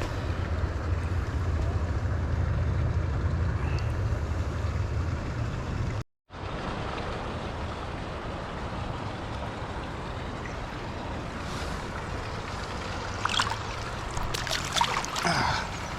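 Steady rush of flowing river water, with a low wind rumble on the microphone for the first six seconds. The sound cuts out briefly about six seconds in, and a few short, louder noises come near the end.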